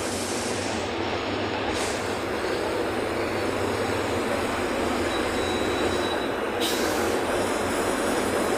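Steady drone of a bus at cruising speed, engine and tyre-on-road noise, heard from inside the cabin.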